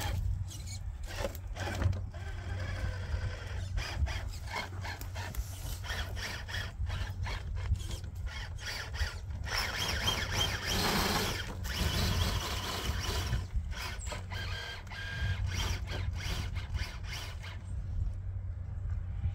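Radio-controlled Traxxas TRX4 K10 rock crawler's motor and geared drivetrain whining as it crawls over rocks, with many sharp clicks and knocks of tyres and chassis against stone. The sound swells for a couple of seconds about halfway through.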